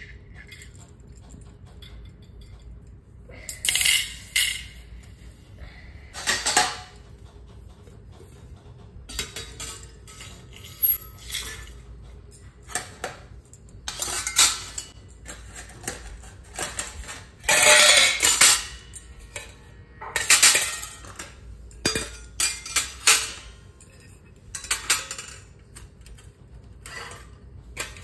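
Stainless steel plates clinking and scraping against each other and against a stainless steel wire plate rack as they are set into its slots one by one. A dozen or so irregular clattering bursts, the loudest about two-thirds of the way through.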